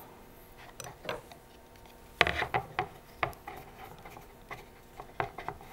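Blue masking tape being folded and pressed down over the edge of a plastic 3D-printer build plate: soft rubbing, then a run of small sharp crackles and taps from about two seconds in.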